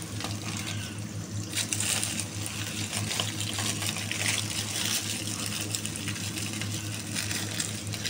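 A steady low hum under a rushing hiss that swells and fades several times.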